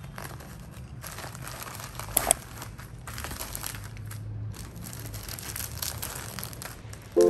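Plastic mailer bags and packaging crinkling and rustling as they are slit open and plastic-wrapped packets are pulled out, with two sharp clicks about two seconds in.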